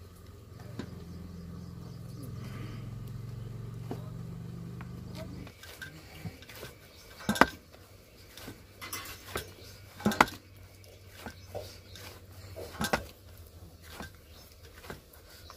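Hands kneading wheat-flour dough in a stainless steel plate, with sharp knocks of dough and knuckles against the steel every second or few, the loudest about halfway through. For the first five and a half seconds a low steady hum runs underneath and then stops abruptly.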